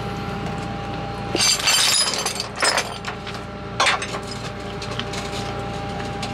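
Steel tow chains and J-hooks clanking and rattling as they are hooked under a truck's frame, in clusters about one and a half, two and a half, and four seconds in. Under them is the steady hum of an idling tow truck engine.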